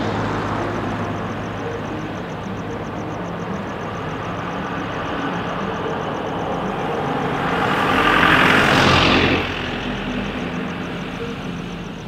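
Night traffic on a harbour-front road over a steady low hum. A large vehicle, a bus, passes close: its engine and tyres rise to the loudest point about eight to nine seconds in, then drop away quickly.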